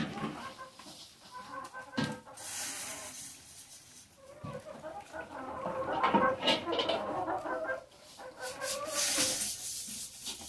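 A flock of laying hens clucking as they crowd around the feeders, with a few knocks and a hissing rustle near the end as feed is poured into a hanging tube feeder.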